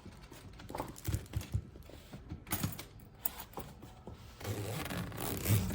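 Hard-side suitcase being opened: the zipper slider rasping along its teeth, with scattered clicks and knocks from handling the shell.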